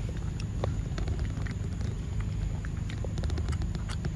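A macaque chewing soft mango close up, with many small wet clicks and smacks of its mouth, over a steady low rumble.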